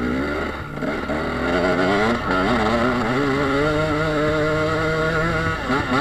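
KTM EXC 300 two-stroke enduro motorcycle engine revving under way: the revs climb over the first couple of seconds, hold high and wavering, then ease off just before the end.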